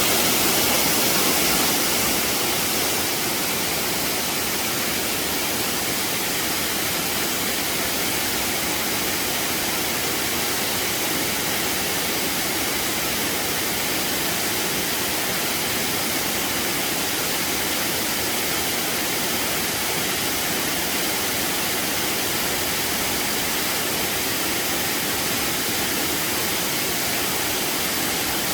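Waterfall, falling water making a steady, even rush of noise. It is slightly louder for the first two seconds or so, then holds level.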